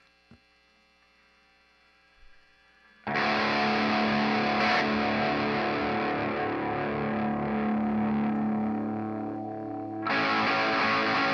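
Near silence with a faint fading ringing note, then about three seconds in a loud, heavily distorted electric guitar comes in suddenly as a thick sustained wall of noise through effects. It eases off slightly for a moment before coming back up near the end.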